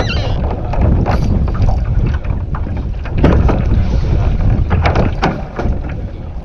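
Strong wind buffeting the microphone on a kayak, a heavy steady rumble, with a few brief sharp knocks about three and five seconds in.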